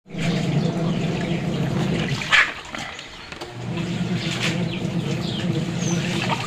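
Washing machine running with water churning in the tub and a steady motor hum; the hum drops out for about a second after a click, then starts again.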